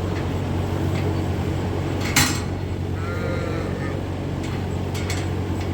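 A sheep bleats once, briefly, about three seconds in, over a steady low hum. A single sharp knock comes just before the bleat.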